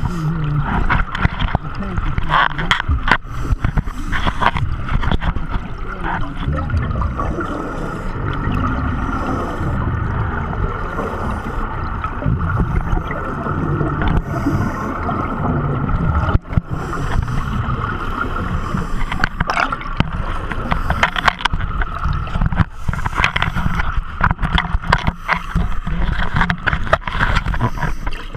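Underwater sound of a scuba diver breathing: exhaled bubbles gurgling past the camera, over a continuous low rumble with frequent knocks and clicks from the handheld camera housing being moved.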